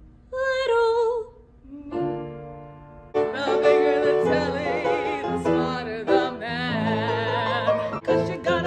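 A woman sings a short phrase with strong vibrato. From about three seconds in, singing with vibrato continues over fuller musical accompaniment.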